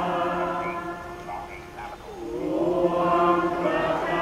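Slow choral singing by many voices in long held notes, dipping briefly about two seconds in and then swelling again.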